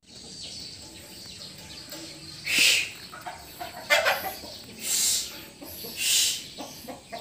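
Chickens calling: four short, loud, high calls about a second apart, starting a couple of seconds in, over a faint steady background.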